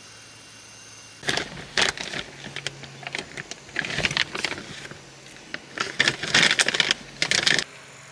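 Plastic packaging crinkling and rustling in uneven bursts as it is handled and opened. It starts about a second in and stops shortly before the end.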